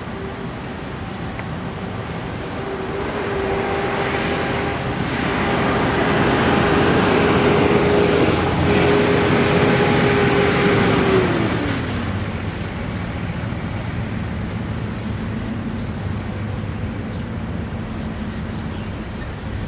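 Freight train cars rolling past on the track, a continuous rumble that swells to its loudest in the middle and then eases off. A steady tone rides over the rumble and slides down in pitch about twelve seconds in.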